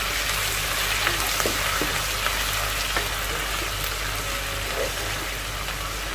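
Browned onions with ginger and garlic frying in a pan: a steady sizzle with a few light clicks scattered through it.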